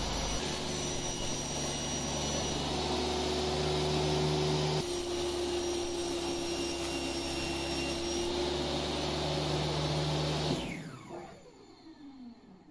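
Table saw running steadily while a cabinet door panel is fed through the blade to trim off its excess width. About ten and a half seconds in, the saw is switched off and its motor winds down with a falling whine.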